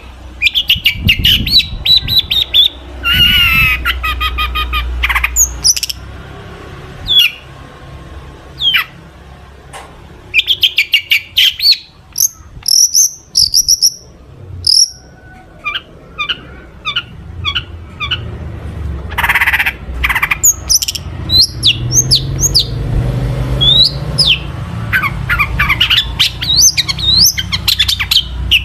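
Long-tailed shrike (cendet) singing a busy, varied song loaded with mimicked calls: fast chattering trills, harsh rasping notes and short sliding whistles in quick succession.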